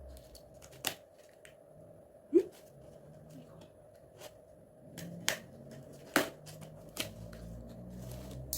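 Hands handling K-pop album packaging and its contents: a series of separate sharp clicks and taps, the loudest about two and a half seconds in.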